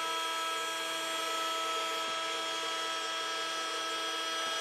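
3018 Pro desktop CNC router's spindle motor running with a steady whine.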